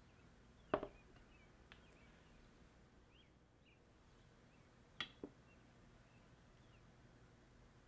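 A metal serving platter is set down on a wooden table with a sharp knock about a second in. Around five seconds in a small glass bowl is set down with two lighter knocks. Faint bird chirps run under otherwise quiet room tone.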